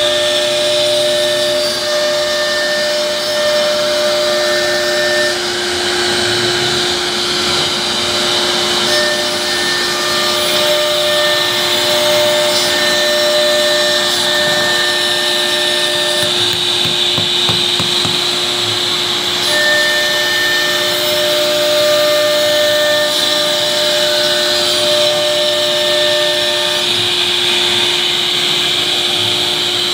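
CNC router cutting a sheet of board: the spindle runs with a steady whine while the bit routs grooves, over the hiss of the dust-extraction hose. Higher tones switch on and off every few seconds as the machine moves.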